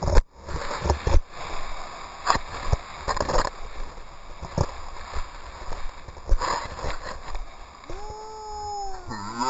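Nylon fabric of a ram-air wing rustling and flapping as it is handled against the camera, with irregular knocks and thumps; the loudest are just after the start and about a second in. Near the end a long pitched call begins, falling in pitch.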